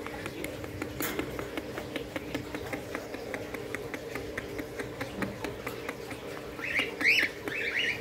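Caged young budgerigars: a run of light, quick ticks, then near the end a few loud, harsh squawks from a bird being handled.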